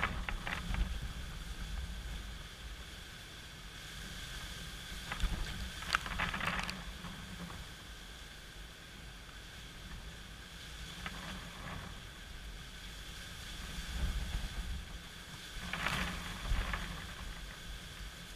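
Gusty wind ahead of Hurricane Irma, rushing through palm fronds and swelling in gusts every few seconds, with a low rumble of wind buffeting the microphone.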